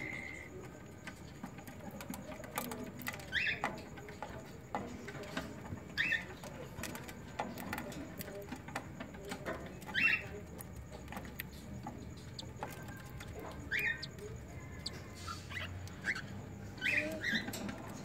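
Newly hatched cockatiel chick peeping: short, high squeaks every few seconds, some coming in quick pairs, over faint clicks and rustling.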